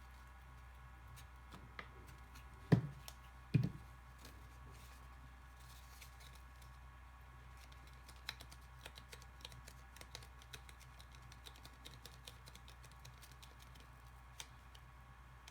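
Two dull thumps on a tabletop about three seconds in, then a long run of light clicks and taps as paper and cardboard pieces are handled and pressed together while gluing.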